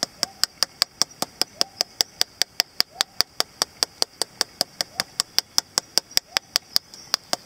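Small hammer tapping a hollow plastic surprise egg over and over, about five sharp clicking knocks a second, to crack it open.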